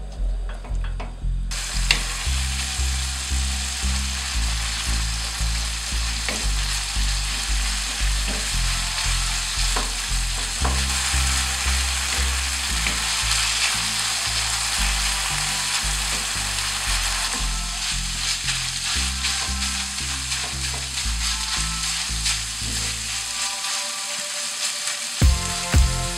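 Minced beef frying in olive oil in a nonstick pan: a steady sizzle that starts suddenly about a second and a half in, with a wooden spoon stirring and scraping through the meat and occasional ticks. A low, steady beat runs underneath.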